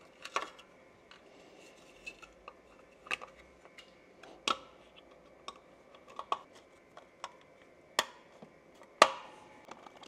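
Scattered light clicks and knocks of plastic and wiring being handled as the black plastic cover is fitted back onto an air compressor's pressure switch, the sharpest two knocks near the end.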